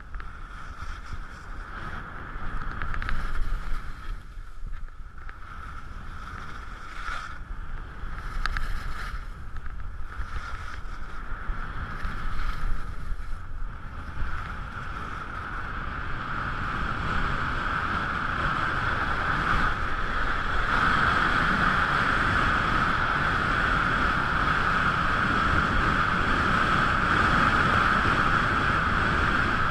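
Wind noise rushing over a skier's action camera in its case, mixed with skis sliding on snow during a downhill run. It comes in uneven surges through the first half, then turns steadier and louder from about halfway.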